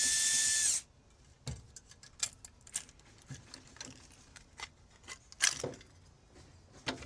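Power drill spinning with a steady high whine that stops about a second in, followed by scattered sharp clicks and clinks of small metal parts being handled.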